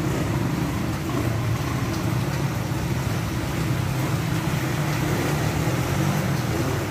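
Vehicle engine running as traffic drives through a flooded street, with water washing around the tyres over a steady background noise.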